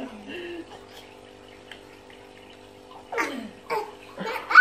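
A steady low hum, with faint voice sounds at the start. From about three seconds in, a few short vocal cries slide sharply down in pitch. At the very end a loud, high cry begins.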